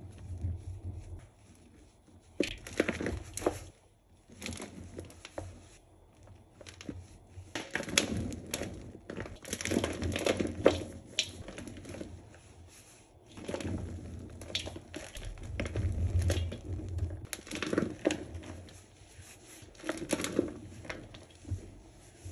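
Crumbly pressed Comet cleanser powder squeezed and crushed by hand: soft crackly crunching and crumbling in bursts a few seconds long, with quieter pauses between squeezes.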